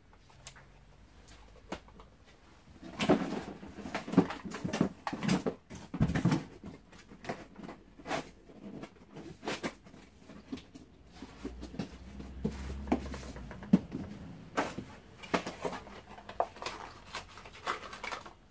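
Unpacking noises: rustling packaging and knocks and clicks of plastic vacuum parts being handled, irregular and starting about three seconds in.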